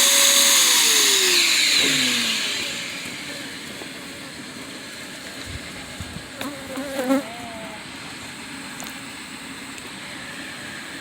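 A vacuum used for sucking up hive beetles runs with a high whine, is switched off about half a second in, and winds down over the next two seconds, its pitch falling. Then honeybees buzz steadily from the open hive.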